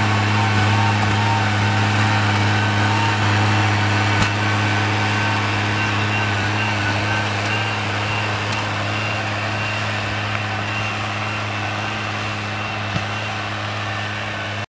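Tractor engine running steadily under load as it pulls a disc plough through soil. It grows slowly quieter as the tractor moves away, then cuts off suddenly near the end.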